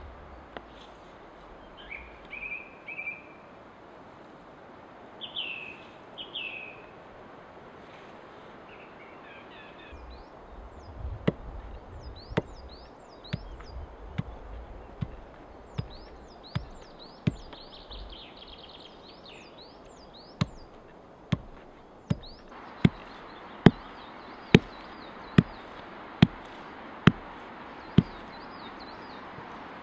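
A homemade axe chopping through strips of raw beef onto a wooden log, cutting the meat for jerky. The sharp chops come about once a second, with a short pause in the middle, and are loudest near the end. Small birds chirp in the first few seconds.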